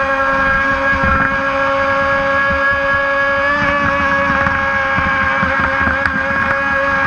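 Brushless electric RC mono racing boat running at steady speed: an even, high-pitched motor whine that holds its pitch, over an irregular low rumble.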